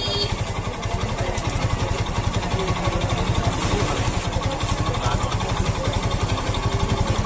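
A small engine idling steadily, beating with an even, rapid pulse.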